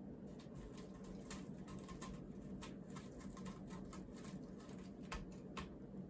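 A cat's claws scratching a scratching pole freshly wrapped in hemp twine: a run of irregular short rasping strokes over a low steady hum.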